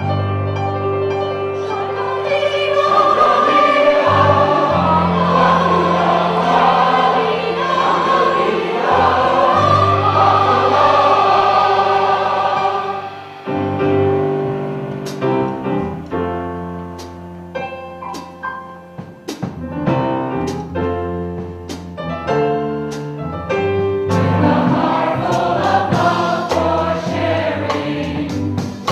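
Mixed chorus of older and younger, male and female voices singing together. It starts suddenly with full sustained singing. In the middle stretch the music breaks into short, separated punched notes, and full sustained singing returns near the end.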